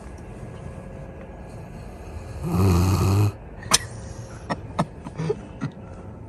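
A sleeping black Labrador retriever snoring once, one loud snore about a second long a little over two seconds in. A few short sharp clicks follow.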